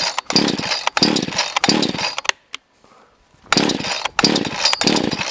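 Off-brand gas chainsaw being pull-started: three quick pulls on the recoil starter, a pause of about a second, then three more, the engine turning over without catching. Its throttle is wedged part-open with a file because the saw has no throttle lock.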